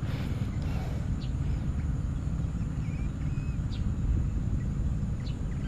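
Steady low rumbling noise on the microphone, with a few faint short bird chirps over it.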